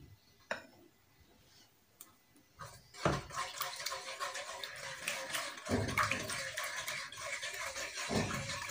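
A black ladle whisking custard into milk in a nonstick pan. After a few faint clicks, a steady sloshing and scraping starts about three seconds in, with an occasional soft knock of the ladle against the pan.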